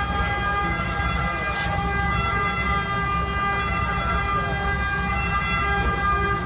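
A continuous warning tone held at one steady pitch, with several overtones, over a steady low engine rumble.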